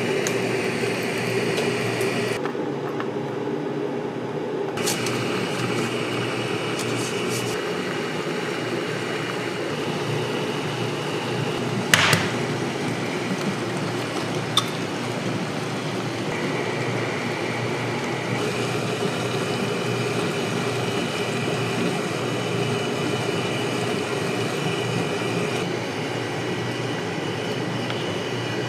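Hauscook automated ramen cooker running with a steady hum and a high whine as it dispenses hot water and cooks instant noodles in a paper bowl. A single sharp crack comes about twelve seconds in as an egg is broken on the bowl, with a smaller click a couple of seconds later.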